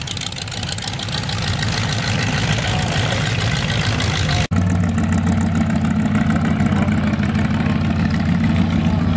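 Rat rod engines running as the trucks drive slowly past, first one with open exhaust headers. About halfway through, a cut brings a steady, low-pitched engine note from another truck.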